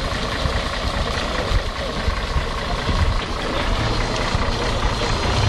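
Fire truck's diesel engine running as the truck rolls slowly up close, with a steady low hum that grows stronger about four seconds in.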